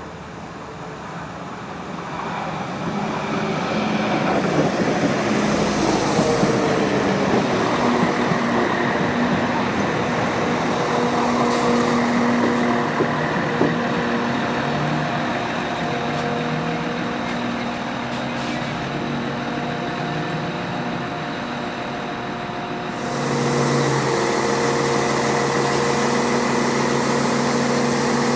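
Transport for Wales Class 197 diesel multiple unit approaching and running along the platform, its underfloor diesel engines and wheels growing louder over the first few seconds as it comes close. The engine note then holds steady, and it steps up louder near the end.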